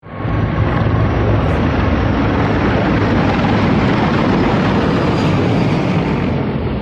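Rotor and engine noise of a formation of low-flying military helicopters, among them Mi-26 heavy-lift helicopters, passing overhead: a loud, steady din.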